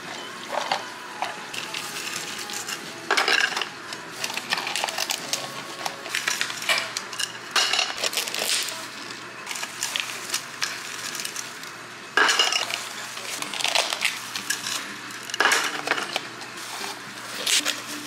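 Clattering of iced drinks being assembled: ice and hard dalgona candy pieces knocking against plastic cups, and plastic dome lids being fitted, in a series of sharp clattering bursts.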